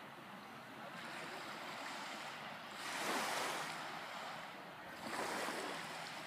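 Gentle surf washing up a sandy beach: a steady hiss with two waves swelling and breaking, about three and five seconds in.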